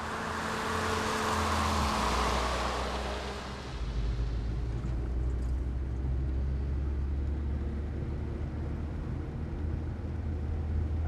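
A minibus driving past, its engine and tyre noise swelling and then fading over the first few seconds. After that, the steady low drone of the engine heard from inside the cab.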